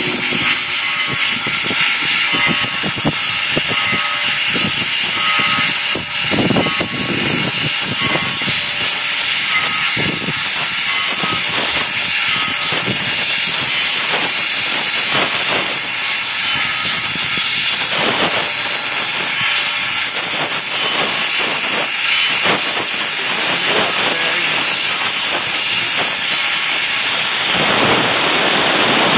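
Loud, steady hiss of steam venting from the boiler top of S.P.&S. 700, a 4-8-4 steam locomotive, heard from the cab while it runs, with irregular knocks and clatter through it. Near the end the lower, rushing part of the hiss drops away.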